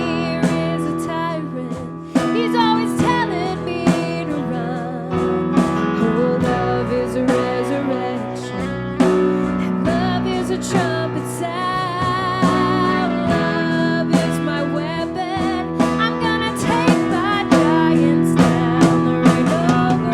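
A song with a singing voice over guitar and drums, with a steady beat.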